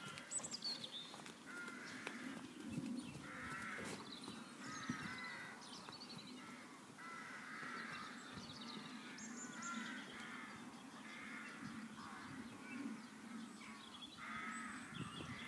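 Crows cawing over and over, a harsh call about every second.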